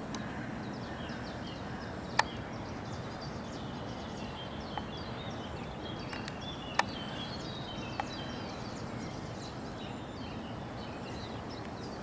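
Many short, high bird calls over a steady outdoor background hiss, with two sharp clicks about two and seven seconds in.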